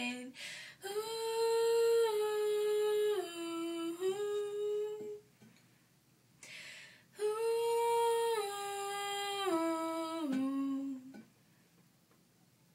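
A young woman humming a wordless melody in two slow phrases of held notes stepping down in pitch, with a breath before each, in a small bathroom.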